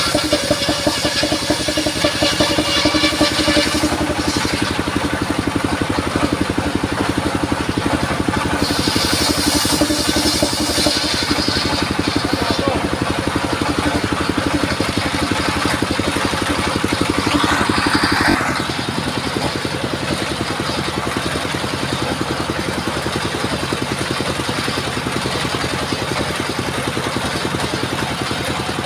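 Engine-driven circular sawmill running continuously, with a harsher high hiss at times, as when the blade is in the cut. About eighteen seconds in the level drops and the machine settles into a steadier, lower running sound.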